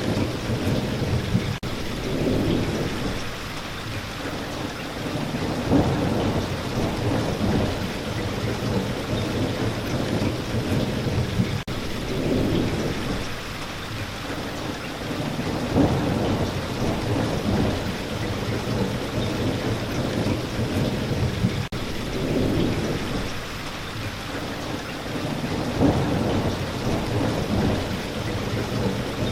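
Steady rain falling, with low thunder rumbles that swell and fade about every ten seconds.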